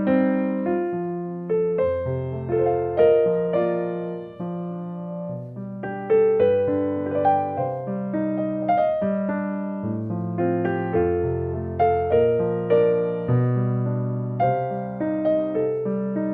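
Background piano music: a gentle, steady run of sustained notes with a slow bass line under the melody.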